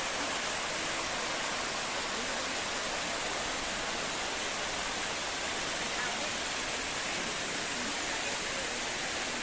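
Steady rush of water falling at a hot-spring waterfall, an even hiss-like roar with no breaks.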